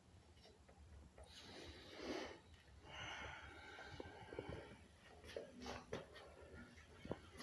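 Faint breathing or snuffling sounds, two soft breaths, then a few small clicks and taps.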